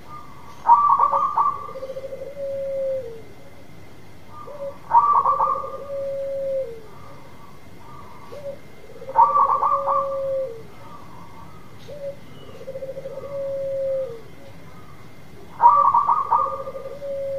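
Zebra dove (perkutut) singing its cooing song four times, about every four seconds. Each phrase is a quick stuttering burst followed by a long, lower note that dips at the end.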